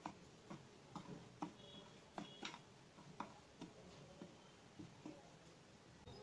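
Small steel spoon faintly ticking against the side of a glass mixing bowl while stirring dry flour and semolina, irregular light clicks about two a second.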